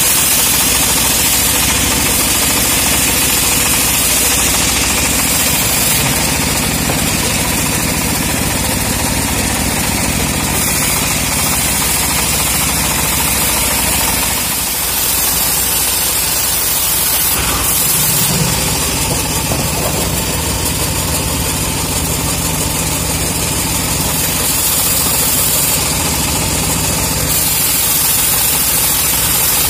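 Homemade bandsaw mill running steadily, its blade ripping lengthwise through teak, with a brief dip in level about halfway through.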